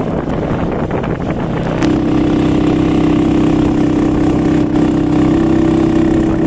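An engine running steadily, a constant hum that grows stronger and smoother about two seconds in.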